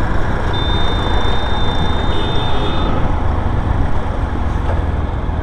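Wind rushing over the microphone and road noise from a motorcycle riding through traffic at speed, a steady dense noise strongest at the low end. A thin, high steady whine sounds for about two seconds near the start.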